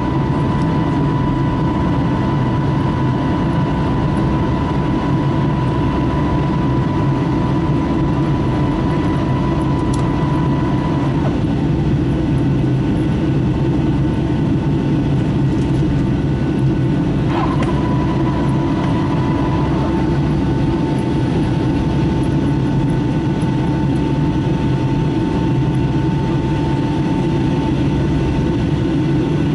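Steady engine and airflow noise heard inside the cabin of a Boeing 757-300 climbing after takeoff: a dense low rumble with a thin steady whine from the engines that steps down slightly in pitch twice.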